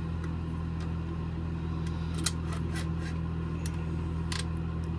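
A few light plastic clicks and taps as a cordless trim router is handled and its base and clamp lever are fitted, over a steady low mechanical hum.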